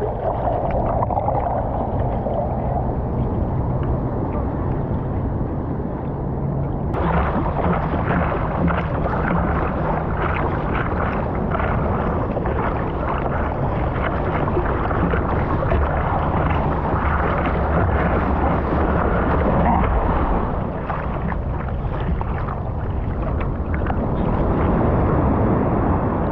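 Surf water and wind on the camera's microphone, a steady rushing wash. It is muffled at first and turns suddenly brighter and more open about seven seconds in.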